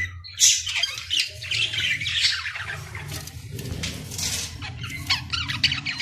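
A colony of budgerigars chattering and squawking, with many short, shrill calls overlapping irregularly over a steady low hum.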